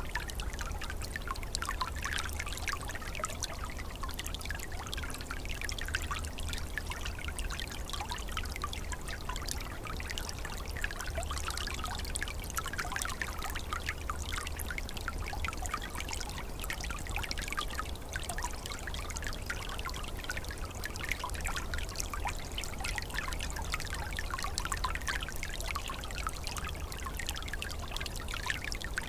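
Small forest stream flowing and trickling over stones in winter, a steady gentle babble with a continuous patter of small splashes and a low rumble underneath.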